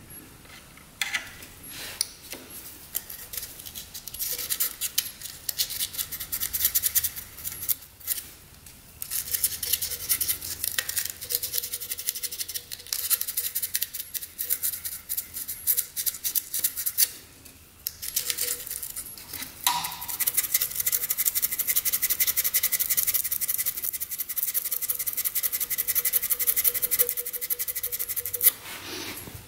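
Strip of sandpaper rubbed quickly back and forth between the ignition contact points of a 1967 Yamaha YL1, a fine scratchy rasping in long stretches with two short pauses. It is scrubbing old residue off points suspected of being bad.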